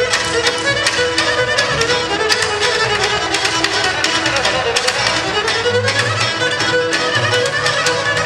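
A Bulgarian rachenitsa played on gadulka, tambura and double bass: the bowed gadulka carries the melody over fast plucked tambura strokes and a plucked bass line.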